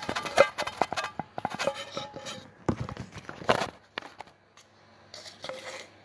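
Handling noise: a rapid run of knocks and clicks as a phone is handled against a stainless steel mixing bowl, with brief metallic ringing, dying down after about four seconds.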